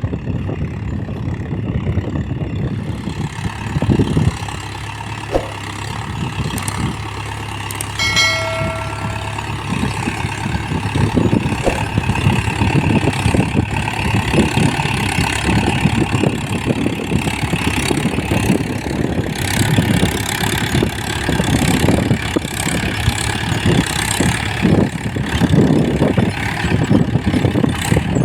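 Mahindra Yuvo 415 DI tractor's four-cylinder diesel engine running steadily. A brief ringing tone sounds about eight seconds in.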